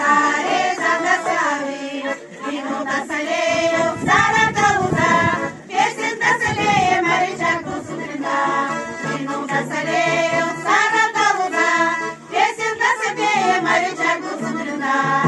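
A women's folk vocal ensemble singing a traditional Bulgarian song in chorus, accompanied by a piano accordion.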